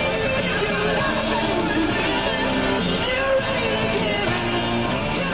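Rock and roll music with singing.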